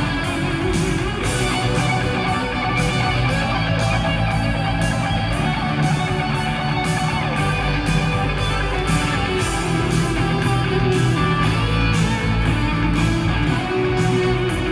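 Rock music with guitar and a steady beat, playing without a break.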